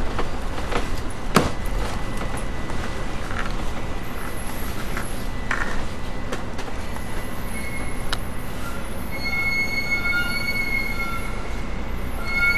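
Double-decker bus heard from on board, rolling slowly with its engine running and a few sharp knocks and rattles in the first half. From about halfway in, brakes squeal in a high, steady tone of several pitches as the bus draws up.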